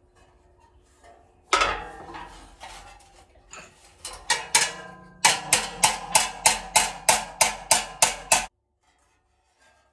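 Small hammer striking the sheet-steel grille of a 1953 Ford Jubilee tractor laid over an anvil, the metal ringing after each blow. A single loud blow about a second and a half in and a few scattered strikes are followed by a quick run of about a dozen strikes, roughly three a second, that stops abruptly.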